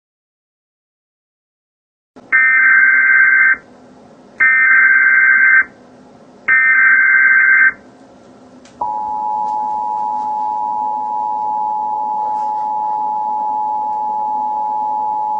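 Emergency Alert System alert tones: after about two seconds of silence come three equal buzzy bursts of SAME header data, each about a second long. About nine seconds in they give way to the steady EAS two-tone attention signal, which marks the start of a new emergency message.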